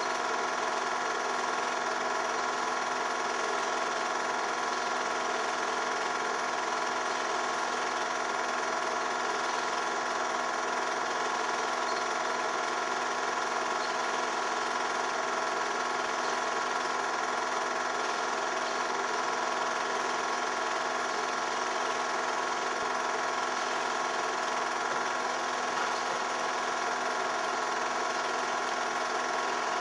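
Home-movie film projector running: a steady mechanical whir and clatter from its motor and film transport, with a constant set of tones.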